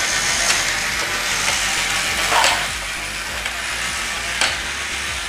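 The battery-driven motors and gearboxes of G1 Transformers walking toys, Omega Supreme and Sky Lynx, running as they walk on a tabletop: a steady mechanical whirring with a few sharper plastic clacks.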